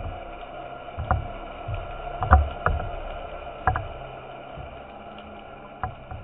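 Underwater ambience picked up through a camera's waterproof housing: a steady hiss with a handful of sharp knocks and dull thuds, the loudest about two seconds in.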